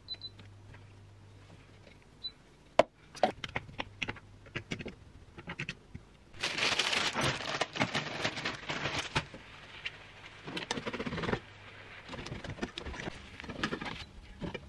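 Cooking in a non-stick frying pan: a few sharp utensil clicks and knocks, then egg mixture sizzling in the hot pan for about five seconds, followed by a spatula scraping and tapping in the pan.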